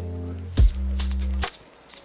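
Background music: a held low chord gives way about half a second in to a kick drum and a bass note with a few sharp drum hits, then the music drops quieter near the end.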